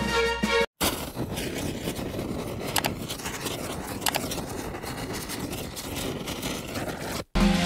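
Background music cuts off under a second in. After a short gap comes an end-screen sound effect: a steady rushing noise, with two sharp clicks about a second apart as the subscribe button and bell are clicked.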